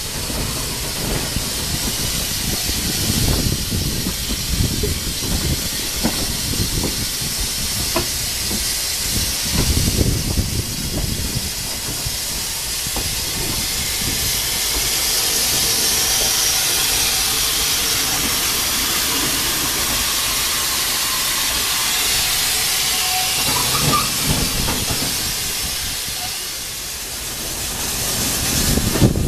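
Steam hissing from a narrow-gauge steam tank locomotive on the next track, over the rumble of a moving carriage's wheels on the rails. The hiss is loudest about halfway through as the carriage draws alongside the locomotive, and eases off near the end.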